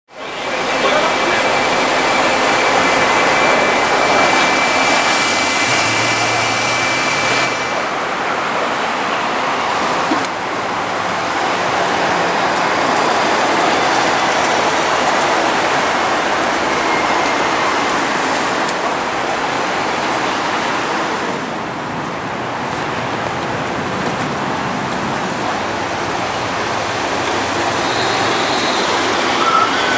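Road traffic with Mercedes-Benz Citaro city buses driving past: a steady wash of engine and tyre noise. A thin high whine sits over it for the first seven seconds or so.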